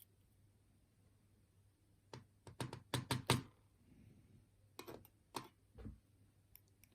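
Light clicks and knocks of small metal lock parts being handled while a challenge lock is taken apart and its pins tipped out chamber by chamber. They come in two quick clusters, about two seconds in and again about five seconds in.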